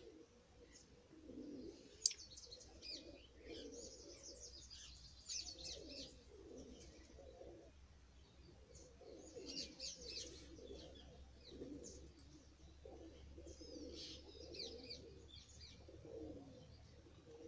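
Faint pigeons cooing over and over, with small birds chirping on and off.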